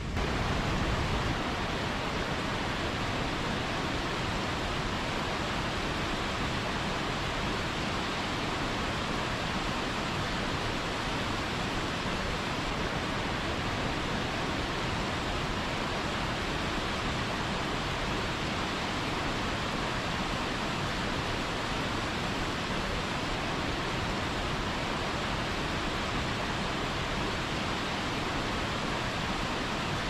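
Waterfall and rushing whitewater: a steady, even rush of water noise with no breaks, stepping up slightly just after the start.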